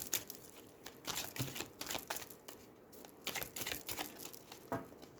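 A deck of small oracle cards being shuffled by hand: soft papery rustling and quick card clicks in several short runs with brief pauses between.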